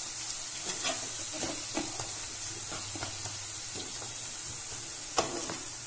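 Spatula stirring and scraping baingan bharta in a metal kadhai while the mix sizzles steadily in its last minute of frying, with one sharper knock of the spatula about five seconds in.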